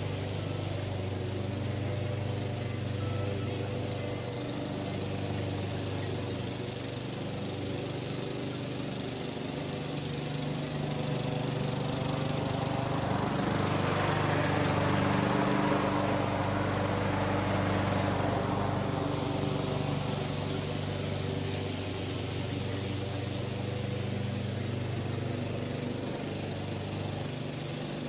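Husqvarna LC 140S self-propelled lawn mower's four-stroke petrol engine running steadily while mowing. It swells louder for several seconds around the middle.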